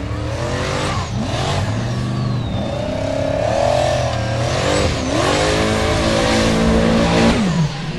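Formula Offroad buggy's engine revving hard under load as it climbs a steep, loose dirt slope, its pitch rising and falling again and again with the throttle.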